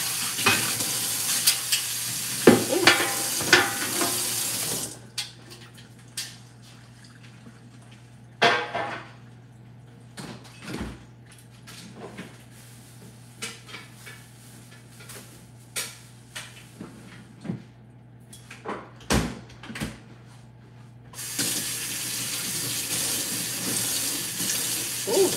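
Kitchen faucet running into a stainless steel sink while a pan is rinsed, shut off about five seconds in. Scattered knocks and clatter follow, and the tap runs again near the end.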